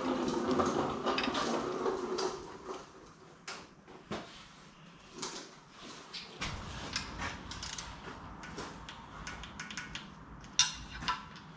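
Metal clicks and clinks of a hand wrench and ratchet tightening the oil pickup bolts on a Toyota 5VZ-FE V6, with one sharp click near the end. A dog's low grumble is heard in the first couple of seconds.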